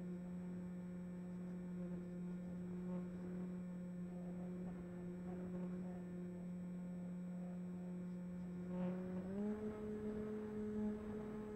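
The RC plane's electric motor and propeller drone steadily, heard through the onboard camera microphone. About nine seconds in, the pitch rises a step and stays up as the throttle is advanced.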